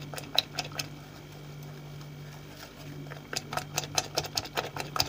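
A metal coil whisk stirring flour into beaten eggs in a glass bowl to make batter, its wire clicking against the glass. A few clicks come at the start, then it goes quieter, then a fast run of several clicks a second comes near the end.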